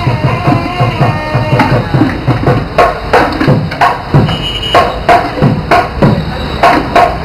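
Drum music: deep drum beats with frequent sharp, cracking strikes, and a held melody line that fades out in the first second or two.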